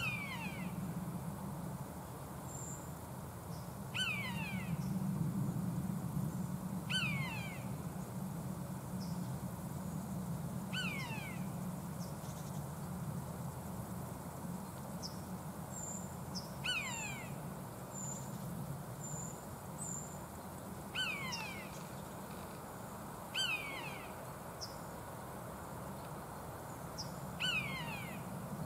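Common buzzard (Buteo buteo) giving its mewing call, a falling "peee-oo", about eight times a few seconds apart. A steady low hum and a few faint high chirps lie underneath.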